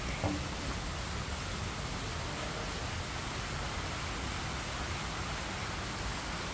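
Steady, even hiss of outdoor background noise, with a short faint blip just after the start.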